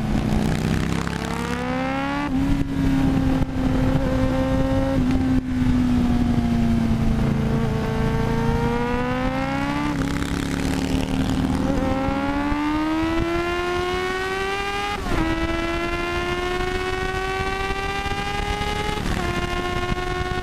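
1993 Yamaha YZF750SP inline-four with a full Black Widow exhaust and EXUP valve removed, accelerating hard through the gears. The exhaust note climbs steadily in pitch, then drops sharply at each upshift, several times over.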